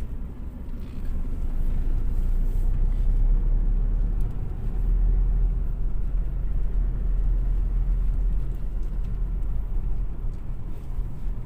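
Steady low rumble of a car moving along the road, engine and tyre noise heard from inside the cabin.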